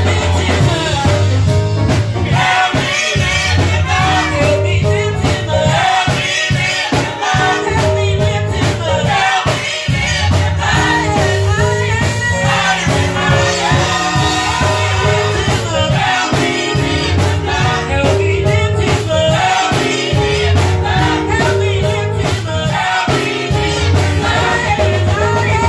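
Gospel worship singing: several singers on microphones, amplified through the room's loudspeakers, over instrumental backing with a steady beat and a strong bass line.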